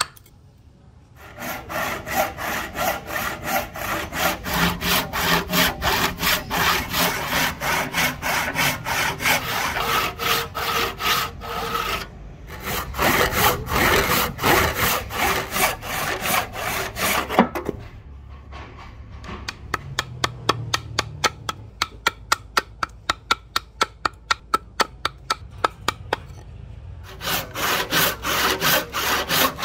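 Hand saw cutting through hardwood in steady back-and-forth strokes, about two to three a second. It stops briefly twice, and the strokes are softer for a stretch in the second half.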